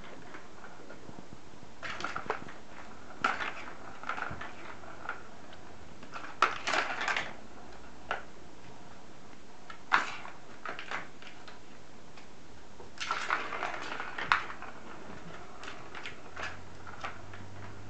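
A kitten pawing at a ball in a plastic ball-track cat toy: irregular bursts of clattering and rattling as the ball rolls and knocks around the track, with single sharp clicks between them, the loudest about ten seconds in.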